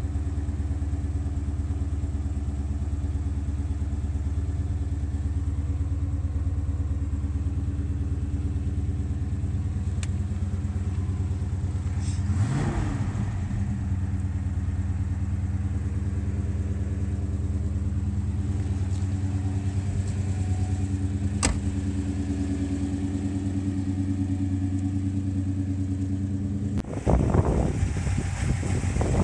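1972 El Camino SS's 454 big-block V8 idling steadily, with one brief rev about twelve seconds in. Near the end the sound gets louder and rougher, heard from the open engine bay.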